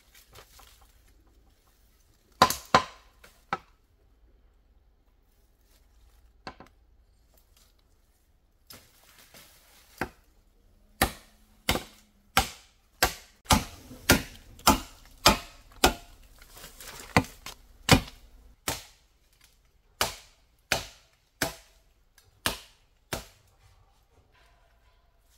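A blade chopping into bamboo with sharp, hard strokes: a few strokes at first, then a steady run of about one and a half chops a second that stops shortly before the end.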